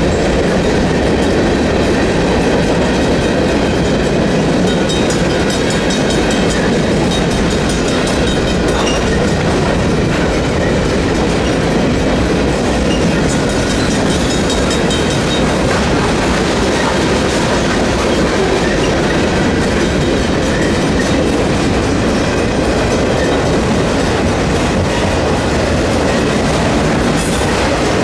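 Freight train rolling steadily past a grade crossing: a loud, continuous rumble of wheels on rail with the clickety-clack of wheels over the rail joints.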